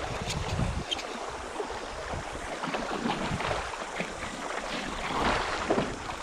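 Shallow river water rippling and splashing, with many small irregular splashes and sloshes. A low wind rumble on the microphone is heard for about the first second.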